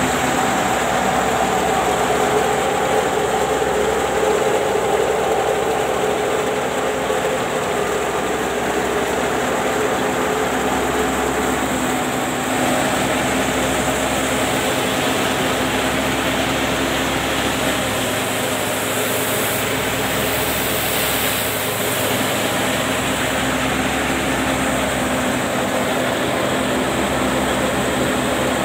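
Belt-driven wheat threshing machine running steadily: a loud, continuous mechanical drone from its spinning pulleys, belts and drum, with several steady hums underneath.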